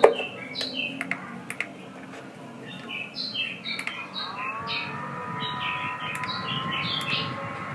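Quick high chirps in short falling runs, like small birds singing, over a low rumble. A click comes at the very start, and from about four seconds in a sweep of sliding tones joins in.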